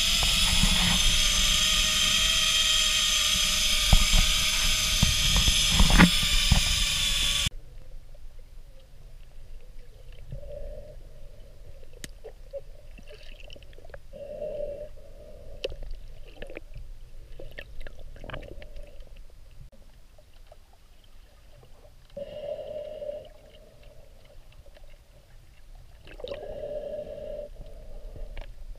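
A zip-line hammock's trolley running down the cable: loud wind rush with a steady whine of several held tones. About seven seconds in it cuts off abruptly to quiet, muffled underwater sound, with occasional short low hoots and a few sharp clicks.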